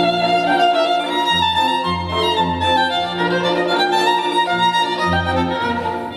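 Violin music with a low bass line, played back through a portable Bluetooth speaker.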